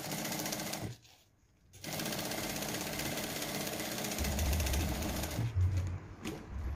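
Domestic sewing machine stitching a straight seam through fabric and bagum. It runs for about a second, stops for about a second, then runs again for several seconds and stops shortly before the end. A few knocks follow as the piece is pulled out.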